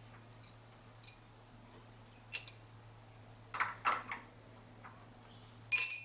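Small metal clinks and taps as a tiny machined hollow rivet is seated in a lathe's ER collet chuck by hand: a single clink, then a few quick ones, then a louder brief rattle near the end, over a steady low hum.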